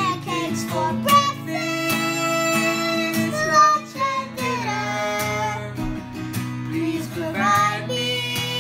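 Music: a song with acoustic guitar accompaniment and a singing voice.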